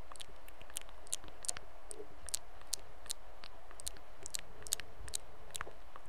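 Close-miked ASMR clicks and ticks, sharp and irregular, a few each second, over a low steady hiss.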